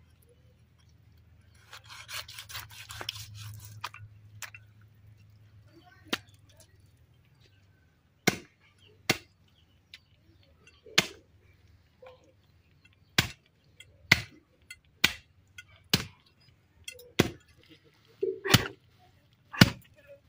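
A heavy chopper blade hacking pig's head meat and bone on a wooden log: about a dozen sharp chops at an uneven pace, roughly one a second, starting about eight seconds in. Before that, a few seconds of rasping as the blade scrapes over the pig's head.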